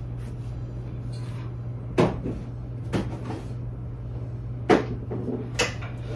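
Kitchen cupboard doors being opened and shut, with four sharp knocks over a few seconds and a steady low hum underneath.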